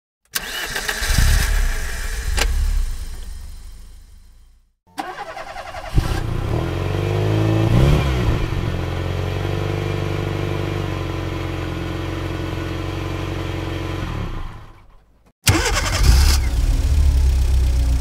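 Three car engines starting one after another. The first starts suddenly, runs and dies away over about four seconds. The second catches, is revved once briefly and settles to a steady idle before fading. The third starts near the end.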